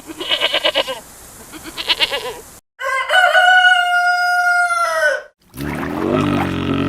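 A rooster crowing once: a long, steady, high call that drops in pitch at the end, after two short bursts of clucking. A lower-pitched animal call follows near the end.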